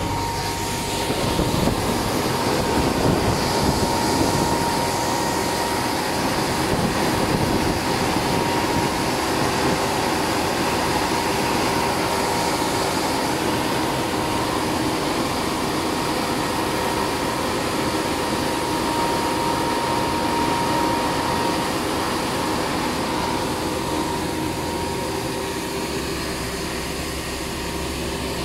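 Truck running steadily on the move, heard from inside the cab: a constant drone of engine and tyre noise on wet road, with a thin steady whine above it.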